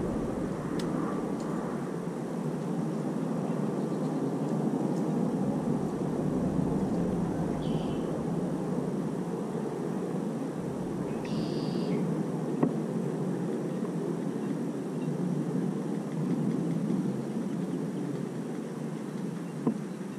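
Steady low outdoor rumble of background noise, with two brief high chirps about eight and eleven seconds in and a soft click near the end.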